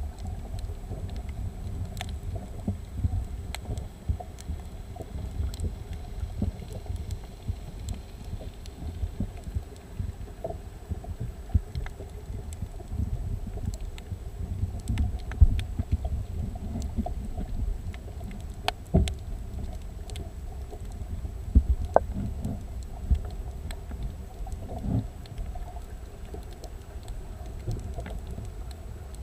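Underwater recording: a muffled, steady low rumble of water moving around the camera, with scattered sharp clicks throughout and a faint high steady whine.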